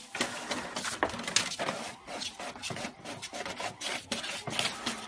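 A cat pawing and scraping at paper in a printer's output tray: an irregular run of short scratchy, rustling strokes against the paper and the plastic tray.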